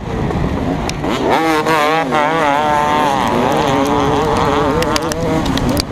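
KTM 250SX two-stroke single-cylinder motocross engine racing under load, its revs climbing sharply about a second and a half in and then rising and falling with throttle and gear changes. A few sharp clicks come near the end.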